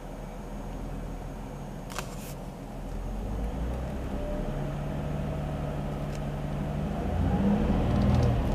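Nissan Fairlady Z33's V6 engine running with a steady note, then revving up near the end. A sharp click sounds about two seconds in.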